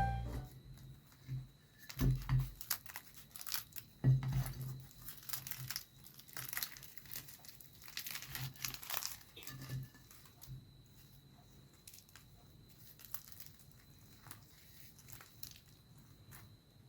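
Irregular crisp crackling and tearing, made by hand. It is loudest and busiest over the first ten seconds, then turns to sparse faint crackles.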